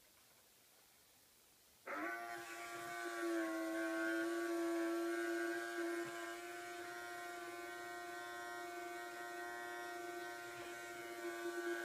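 Small electric motor driving a scale model ferry's bow visor slowly closed: a steady humming whine that starts suddenly about two seconds in and holds an even pitch.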